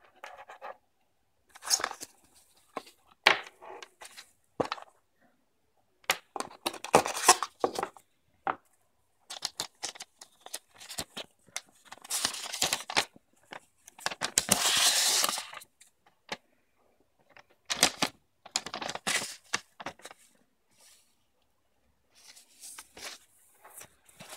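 Unboxing handling noise: paper and soft wrapping rustling and crinkling in irregular bursts, with occasional sharp clicks from the cable and its plugs. The longest, loudest rustling comes a little past the middle.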